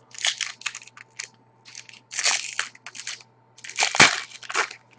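Trading-card pack wrapper being torn open and crinkled, with the cards handled, in a run of crackling bursts and a sharp snap about four seconds in.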